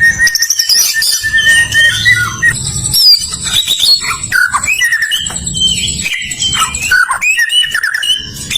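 White-rumped shama (murai batu) singing a loud, varied run of whistles, slurred glides and rapid trills, with barely a pause.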